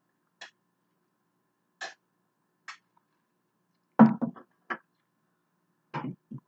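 A woman gulping a drink, three short swallowing sounds, then burping: a loud burp about four seconds in and another shortly before the end.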